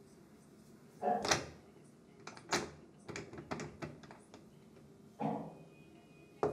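Knocks and clicks at a door: a loud knock about a second in, a run of sharper clicks over the next few seconds, and another loud knock near the end.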